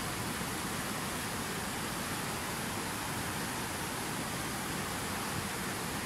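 Fast white-water river rushing over rocks: a steady, even rush of water.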